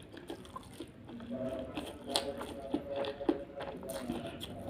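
Chewing and crunching of crispy spicy Indomie noodles, with many short crisp crunches scattered throughout.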